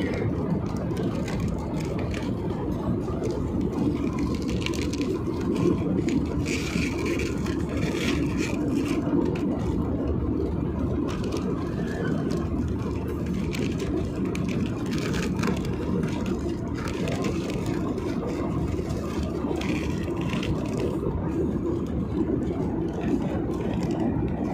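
Steady jet engine and airflow noise inside an airliner's passenger cabin, with occasional faint clicks and rattles.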